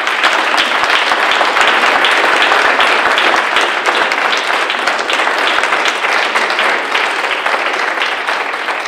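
Audience applauding: many people clapping together in a dense, loud patter that starts to fade near the end.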